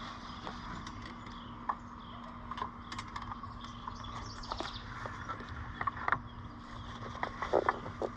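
Scattered light clicks and knocks from the engine oil dipstick being pulled out and handled, coming thicker and louder near the end, over a steady background hum.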